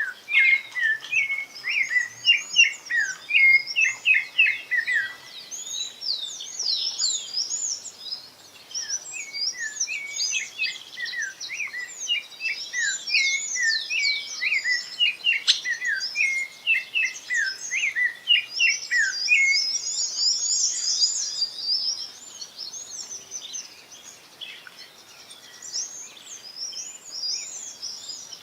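Songbird singing: a fast, continuous run of short, high chirping and sliding notes, rising and falling in pitch.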